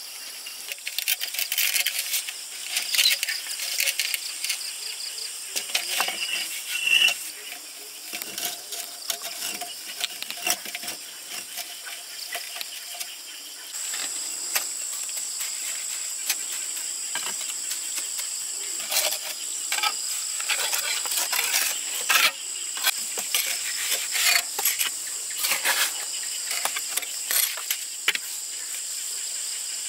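Irregular light clicks and taps, with insects chirring; from about halfway in a steady high chirr sets in abruptly and holds.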